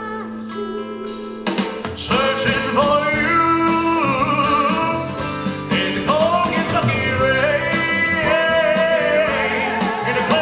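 Man singing a slow country-pop ballad into a microphone over full band accompaniment with guitar. The accompaniment swells louder about a second and a half in, and he holds long notes with vibrato.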